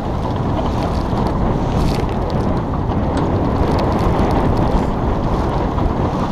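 Steady wind buffeting the microphone aboard a small sailboat under way in a 12–18 knot breeze, with water rushing along the hull.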